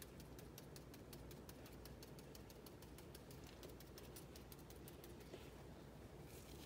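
Faint, quick light tapping, about eight taps a second, from a small mesh strainer being tapped to sift mica powder onto soap batter. The tapping thins out about five seconds in.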